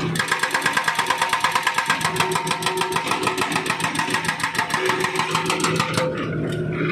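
Hydraulic breaker on a Volvo wheeled excavator hammering asphalt in a fast, even run of blows, about eight a second, that stops about six seconds in, leaving the excavator's engine running.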